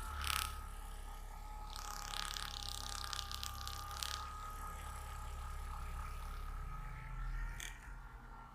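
Hands rubbing and scratching over skin and hair during a massage, a dry scratchy friction for a couple of seconds, with a sharp click near the start and another near the end. A faint steady whine sits underneath.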